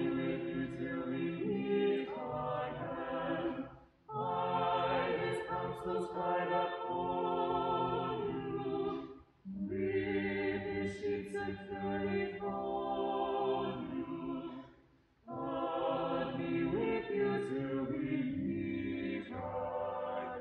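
Mixed four-voice vocal quartet singing a cappella in held chords, in four phrases with short breaks for breath between them.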